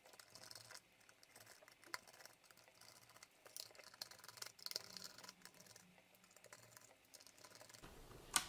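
Faint, scattered small clicks and taps of plastic as the case of an RC car's hand-held transmitter is handled and pried open, with one sharper click near the end.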